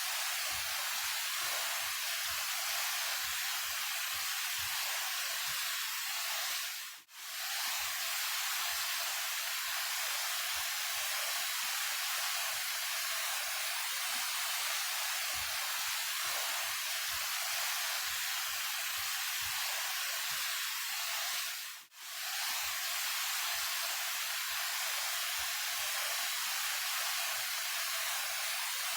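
Steady rushing of a 28 m waterfall, a continuous hiss of falling water. It fades out and straight back in twice, about 15 seconds apart, where the recording is looped.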